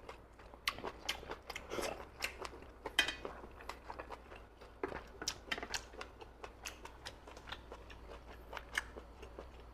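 Close-up eating sounds of boiled moon snails: wet mouth clicks, smacks and chewing in a quick, irregular run of short clicks.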